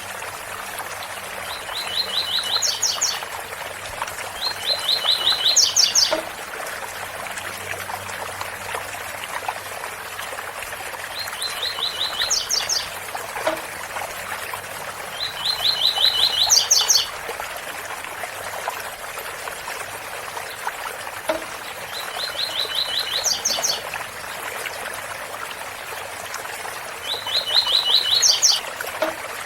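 Double-collared seedeater (coleiro) singing its 'tui-tui' song. About six short phrases, each a quick run of repeated notes ending in a few higher notes, come every few seconds over the steady rush of a waterfall.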